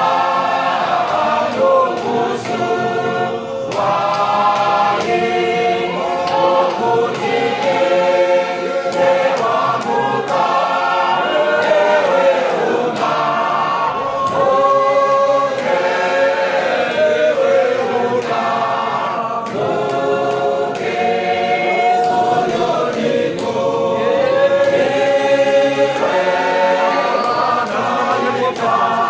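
A large men's church choir singing a hymn together, in long held phrases with brief breaks between them.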